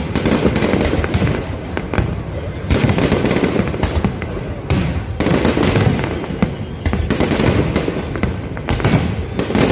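Fireworks display going off: many sharp bangs and crackles in quick succession, loud and dense.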